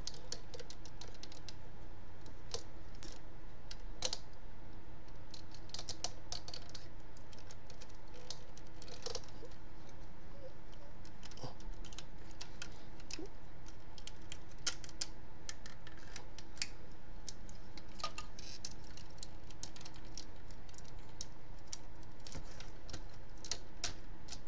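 Plastic parts of a chrome-painted MP-10 Optimus Prime toy robot figure clicking and tapping irregularly as they are handled, folded and snapped into place, over a faint steady hum.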